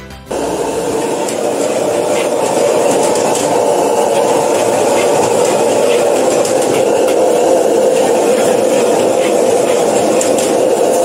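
Commercial gas wok burner running with a loud, steady rushing flame, starting abruptly a moment in, while fried rice is tossed and stirred in the wok, with faint taps and scrapes of the spatula against the pan.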